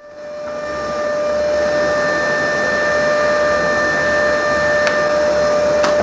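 Bosch GAS 35 wet/dry vacuum switched on: the motor spins up over about a second, then runs with a steady whine over a rushing airflow, with two sharp clicks near the end. It is running with an aftermarket filter whose rubber seal has been trimmed to fit.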